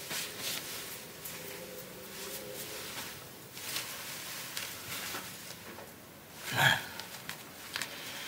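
One short vocal sound from a young man about six and a half seconds in, over quiet room tone.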